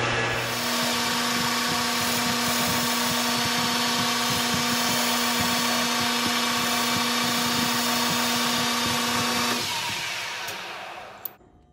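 Metal lathe running, its spindle turning as a high-speed steel tool cuts barbs into a 1/2-inch hex-bar propane jet. It is a steady machine hum with several fixed tones, and it runs down and fades out near the end, followed by a short click.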